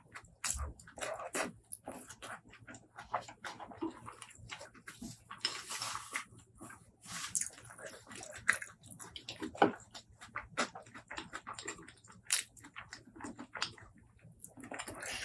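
Close-miked eating: wet chewing and lip smacks with frequent small clicks, and two longer hissing slurps about five and seven seconds in.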